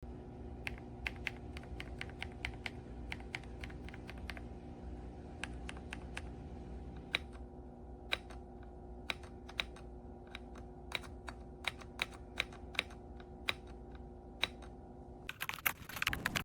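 Keys being typed on a Redragon K668 full-size mechanical keyboard: irregular sharp key clicks, quicker at first and sparser later, ending in a short dense clatter of keystrokes near the end. A steady low hum runs underneath.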